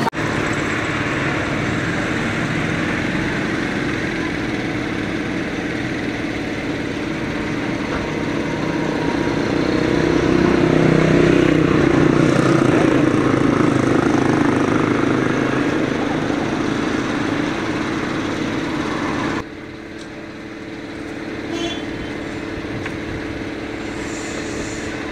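Street traffic: small motorcycle and vehicle engines running steadily. The drone grows louder in the middle as an engine comes close, then drops suddenly to a quieter traffic background near the end.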